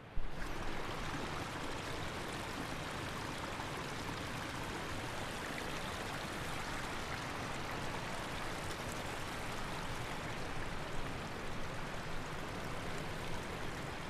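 River water flowing over rocks: a steady, even rush that cuts in suddenly.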